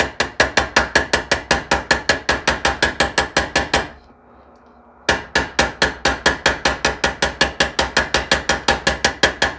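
Ball peen hammer tapping 1939 Graham stainless steel side trim against a steel anvil held in a vise, about seven quick light taps a second with a steady metallic ring, working dents up from behind. The tapping stops for about a second near the middle, then resumes.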